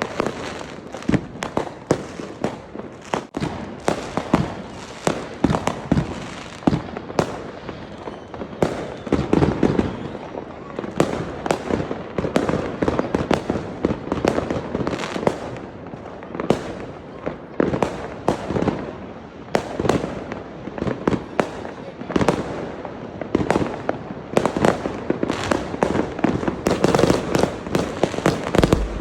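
Fireworks going off: many sharp bangs and pops in quick, irregular succession, almost without a break.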